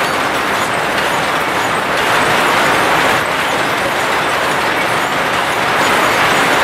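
Card-coded straw-mat loom running, its gears, linkages and shuttle mechanism giving a fast, continuous mechanical clatter.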